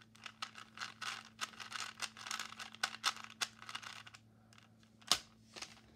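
Plastic Rubik's Cube being twisted by hand: a quick run of clicking, clacking turns, then a pause and one sharp click about five seconds in.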